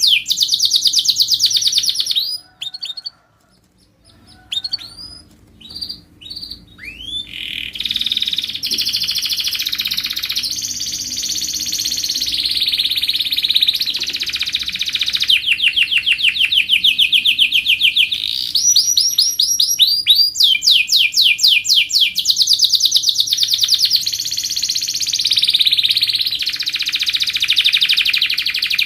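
Domestic canary singing: long runs of rapid, evenly repeated trill notes. The song breaks off briefly a few seconds in, restarts with scattered notes, then runs on as continuous rolling trills.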